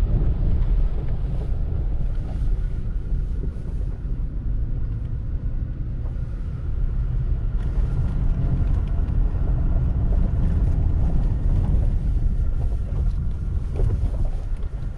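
Vehicle cabin noise while driving slowly on a gravel and dirt track: a steady low rumble of engine and tyres, with faint crunches from the gravel.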